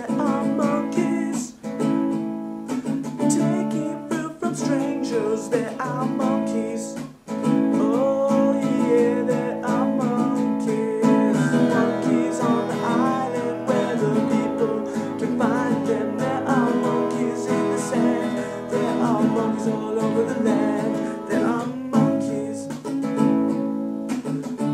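A song: strummed acoustic guitar with a singing voice.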